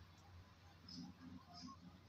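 Near silence: a faint background with a low steady hum and a few soft, brief sounds in the second half.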